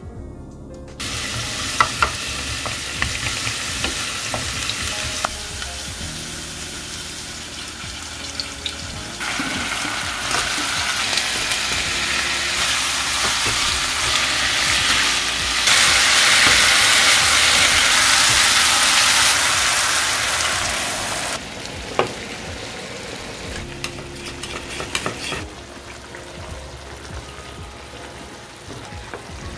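Food sizzling in an oiled frying pan while it is stirred, with occasional knocks of the utensil against the pan. The sizzle grows louder through the middle and falls back near the end.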